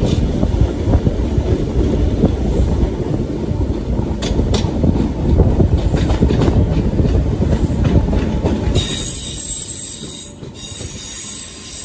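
Class 313 electric multiple unit heard from on board, its wheels rumbling and clicking over the rail joints at speed. Near the end the rumble eases and a high-pitched wheel squeal sets in as the train slows on the curve into the station.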